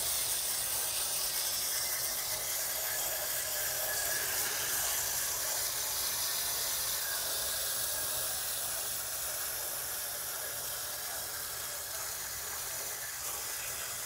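Water spraying from a garden hose nozzle onto the fins of an air conditioner's outdoor condenser coil, making a steady hiss as the coil is rinsed clean.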